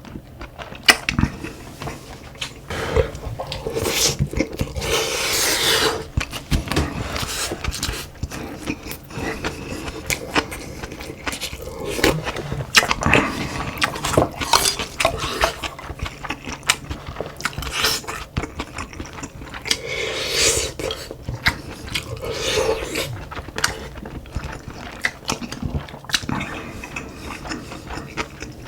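Close-miked eating: chewing, with a spoon and chopsticks clicking and scraping against bowls and dishes at irregular moments.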